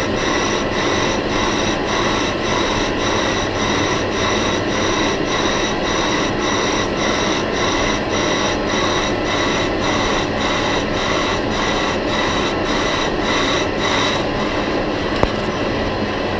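Lathe boring the inside of a vacuum compressor housing: steady machine noise with a high cutting whine and an even pulse about twice a second. The upper part of the pulse fades near the end, and there is one sharp click.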